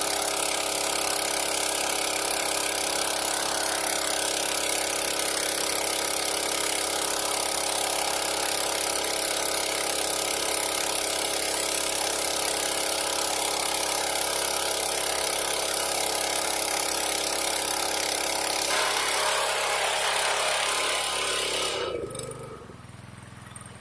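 Small engine running steadily at part throttle, with a constant high hiss over it. The sound changes about three-quarters of the way through, then the engine shuts off near the end, leaving only a faint hum.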